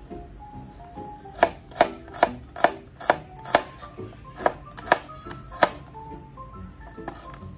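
Kitchen knife slicing a red onion on a plastic cutting board: a run of about nine sharp knocks of the blade meeting the board, roughly two a second, starting about a second and a half in and stopping a couple of seconds before the end.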